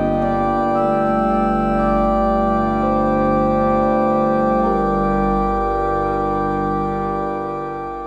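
Background music of slow, sustained chords that change every second or two, fading out near the end.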